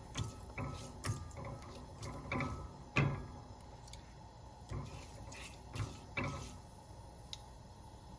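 Mustard seeds popping and crackling in hot coconut oil in a pan: irregular sharp pops at uneven intervals, the loudest about three seconds in and fewer near the end.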